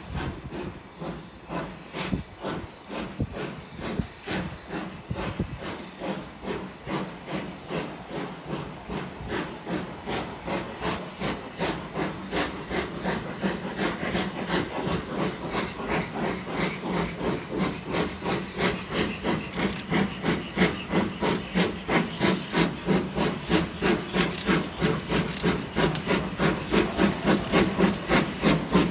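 Steam locomotive working hard, its exhaust chuffing in a steady, even rhythm and growing louder as it approaches.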